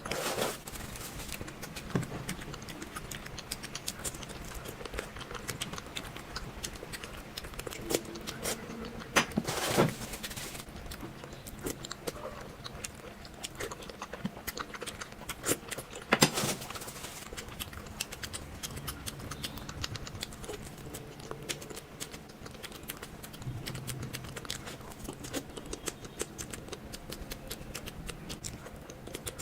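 Close-miked eating of sweets: a steady run of small wet mouth clicks and chewing, with a few louder crunchy bites about nine to ten seconds in and again about sixteen seconds in.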